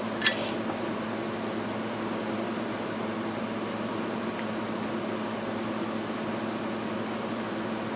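Steady whirring hum with a constant low tone, like a fan or ventilation unit running. A single sharp click comes just after the start.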